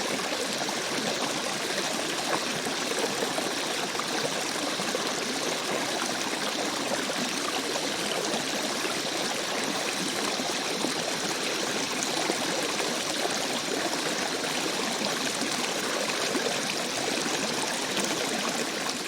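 Rainforest stream running and trickling steadily, with a faint steady high tone above the water.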